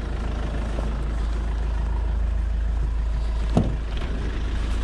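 Van driving along: a steady low engine and road rumble, with a single knock about three and a half seconds in.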